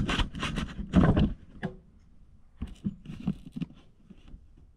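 Handling noise: a burst of rustling and knocking for about the first second and a half, then scattered light clicks and taps.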